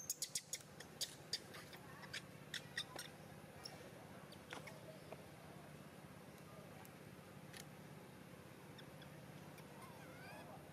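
Baby long-tailed macaque squeaking: a quick run of short, high-pitched squeaks over the first three seconds, a few more scattered after, and a couple of short rising-and-falling calls near the end.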